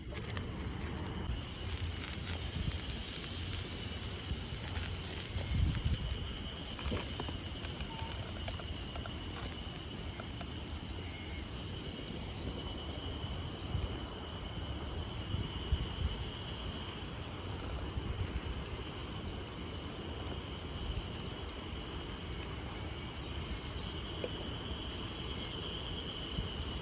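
Campfire crackling with scattered small pops over a steady low rumble.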